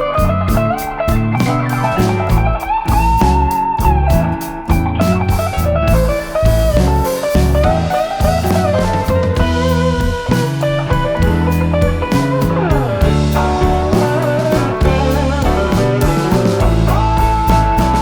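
Background music: bluesy electric guitar playing bending lead lines over bass and drums with a steady beat.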